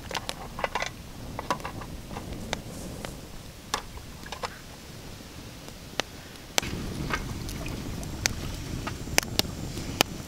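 Small wood campfire crackling, with sharp single pops every second or so, over a steady low rush of river water. The rush gets louder about two-thirds of the way through.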